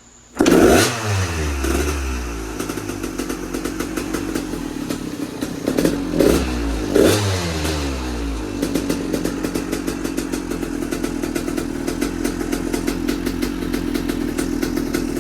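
KTM EXC 300 single-cylinder two-stroke dirt bike engine running: blipped up in a few quick revs just after it comes in and again about six and seven seconds in, then idling steadily. The engine, which had appeared seized, is running again after its rebuild with new piston and rings.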